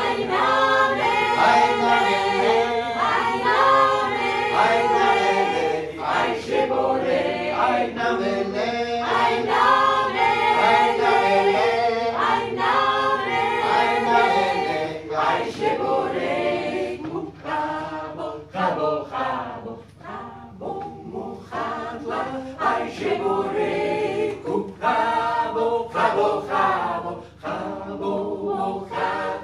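Mixed close-harmony vocal group of men and women singing a cappella in several parts. The singing is full and loud for the first half, then grows quieter and sparser, with short breaks between phrases.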